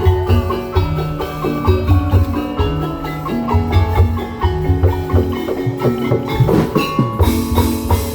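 Tongklek ensemble playing: a melody on tuned struck percussion over a steady, repeating drum beat.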